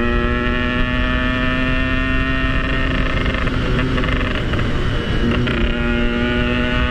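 Yamaha RX-King's single-cylinder two-stroke engine running under way with a slowly rising pitch. Around the middle its note breaks up for about a second and a half, as if the throttle is eased off, then it picks up and climbs again.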